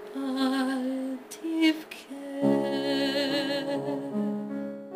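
Closing bars of a slow ballad: a woman hums a wordless, wavering line with vibrato, and about halfway through the accompaniment comes in on a held final chord.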